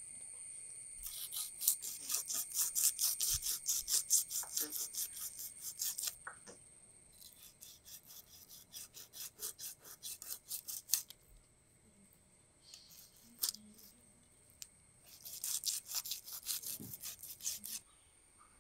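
Kitchen knife scraping the scales off a pearl spot fish on a cutting board, in fast repeated strokes. The strokes come in three spells with short pauses between.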